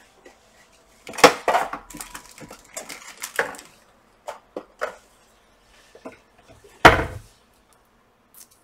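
Hard objects clicking, clattering and knocking as someone rummages for a roll of tape: irregular short knocks, with the loudest clunk about seven seconds in.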